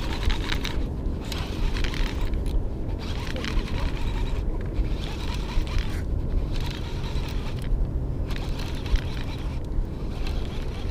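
Wind and water noise aboard a small open boat. A steady low rumble of wind on the microphone, with a hiss that comes and goes every second or two.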